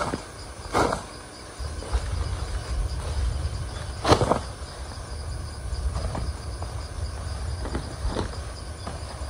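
Insects chirping steadily in the forest, over a low rumble, with a few short knocks, the loudest about four seconds in.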